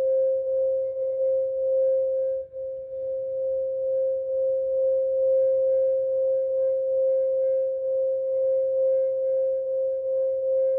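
Quartz crystal singing bowl sustaining a single steady 528 Hz tone with a slow pulsing wobble and faint higher overtones. The tone dips briefly about two and a half seconds in.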